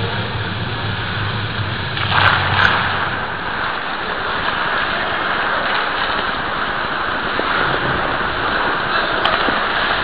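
Steady rushing noise of an ice hockey game heard through a helmet-mounted camera's microphone, with a couple of sharp knocks a little after two seconds in.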